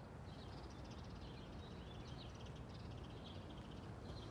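Faint chirping of small birds, short scattered calls over a low, steady background rumble.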